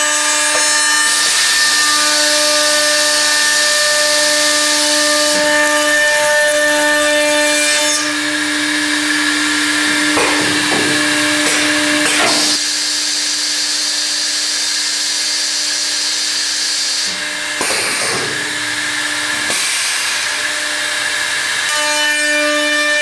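High-speed router motors of a CSR-700 automatic stair trencher running with a steady whine while routing housings into a wooden stair stringer. The cutting noise grows and eases several times as the heads work through the board.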